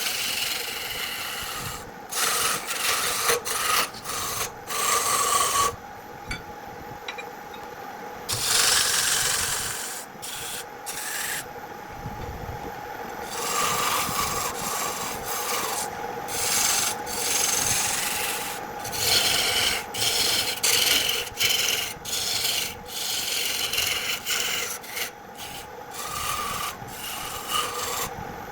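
Wood being rubbed and rasped by hand in repeated, uneven strokes, some short, some lasting a couple of seconds.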